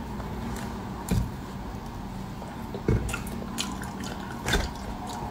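Durian being pried apart by hand: soft wet squishing of the flesh and husk, with a few short knocks from the spiky husk segments, the loudest about a second, three seconds and four and a half seconds in.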